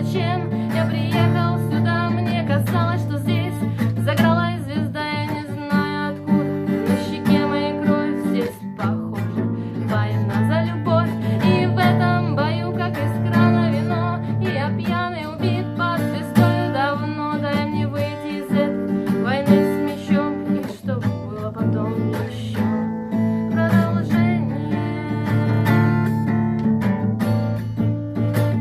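Music: a song played on acoustic guitar, strummed and plucked, in a stretch with no sung words, with a wavering melody line over the chords.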